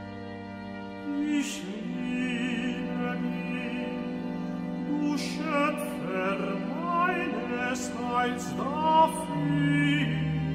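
Classical-period sacred vocal music: operatic singing with strong vibrato over sustained chamber-orchestra strings.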